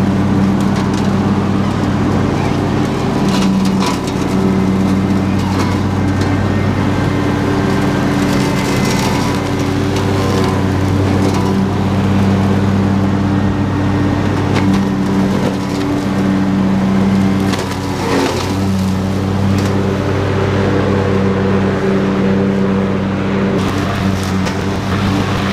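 Husqvarna YTH22V46 lawn tractor's V-twin engine running steadily under load as the mower deck cuts through brush and tall weeds, with repeated sharp cracks and snaps of stems and sticks hitting the blades.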